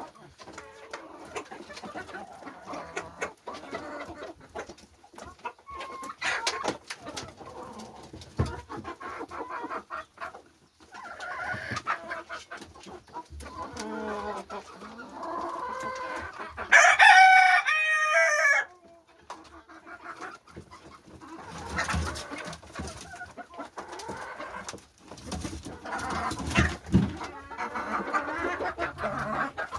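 A flock of chickens clucking and calling, with short clicking sounds among them. A rooster crows once, loudly, for about two seconds just past the middle.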